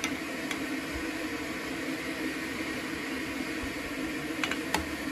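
Steady hiss and hum of beef pieces boiling in a cast-iron pot on a gas burner, with a few light clicks of a spoon against the pot as the scum is skimmed off.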